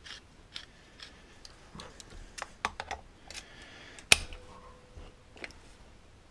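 Scattered small metallic clicks and knocks as locking pliers are handled and clamped onto a bolt head on a chainsaw, with a sharp click about four seconds in, the loudest of them.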